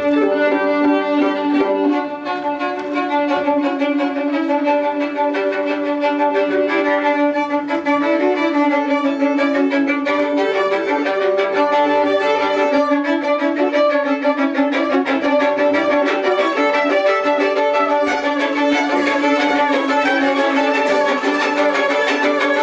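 Two violins played together, quick running notes over a steady held low note.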